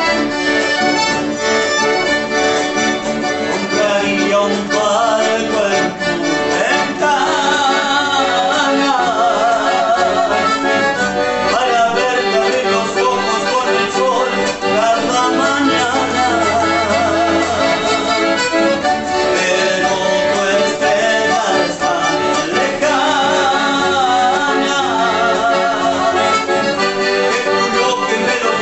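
Chamamé played live on a piano accordion with acoustic guitar accompaniment, and a man singing over it in several stretches.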